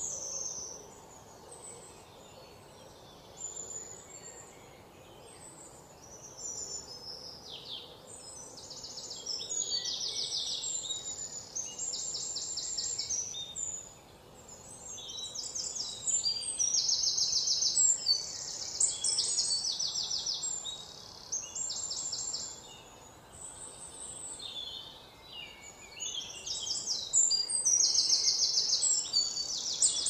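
Small birds chirping and trilling, several at once, in rapid high-pitched runs of notes that come in waves over a faint steady background hiss.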